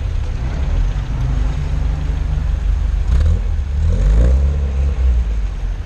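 Classic cars driving past one after another with a low engine rumble. One engine revs up, rising in pitch, about four seconds in.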